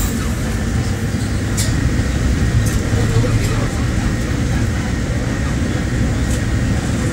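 Cabin noise inside a King Long XMQ6126G 12-metre city bus moving slowly in traffic: a steady low engine and road rumble, with a few short clicks and rattles.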